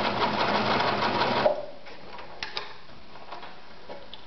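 Victoria Super Deluxe 118F sewing machine running, stitching through 3.5–4 mm leather with a fast even stitch rhythm. It stops suddenly about a second and a half in, and a few light clicks follow.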